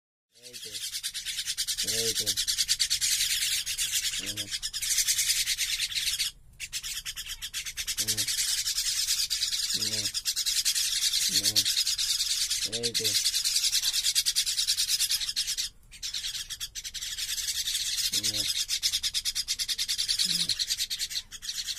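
Young common mynas giving continuous harsh, rasping begging calls while being hand-fed. The calls break off briefly about six seconds in and again about sixteen seconds in, and short lower-pitched sounds come through about eight times.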